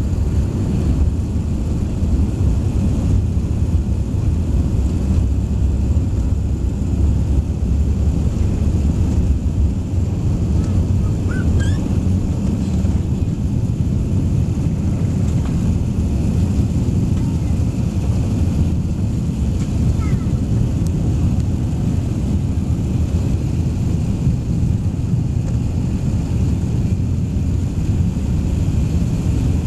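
Airbus A380 cabin noise during takeoff: a steady, loud, low rumble of the engines at takeoff thrust, heard from inside the cabin over the wing.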